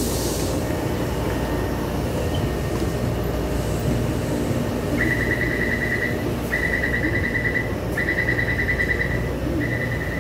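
Steady metro-platform background noise. About five seconds in, a rapid high beeping starts and sounds in bursts of about a second with short gaps between them: the door-closing warning of a Taipei Metro train standing at the platform.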